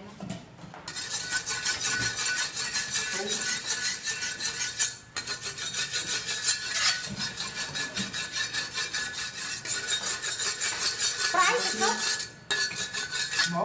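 Metal kitchen utensil scraping rapidly and rhythmically against metal, several strokes a second, with a brief pause about five seconds in and stopping shortly before the end.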